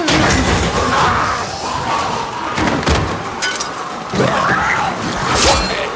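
Close-quarters fight: repeated thuds and slams of blows and bodies striking, with strained vocal cries in between, and a sharp crash about five and a half seconds in.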